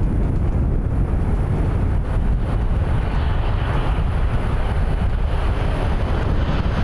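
Jet engines of a narrow-body airliner, a loud steady rumble as the plane passes, with a hissing upper edge that swells midway through.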